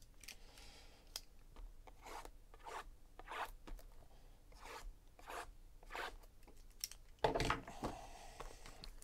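Sealed cardboard trading-card boxes being slid and shuffled around on a tabletop by hand: a string of short scraping and rubbing sounds, louder for a moment about seven seconds in.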